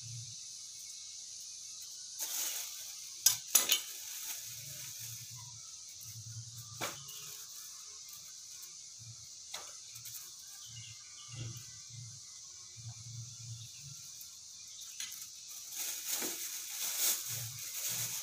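Small kitchen knife working on bulbs of bawang by hand, giving scattered sharp clicks and taps as they are peeled and trimmed, the loudest few around three to four seconds in. A steady high hiss lies under it, and a busier stretch of scraping and handling comes near the end.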